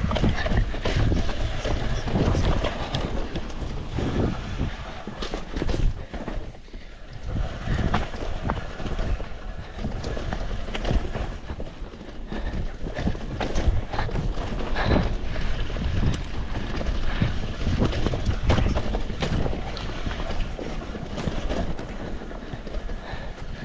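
Wind buffeting the microphone of a GoPro riding on a mountain biker as a full-suspension mountain bike rolls down a wet, muddy trail, with tyre noise and frequent short knocks and rattles from bumps.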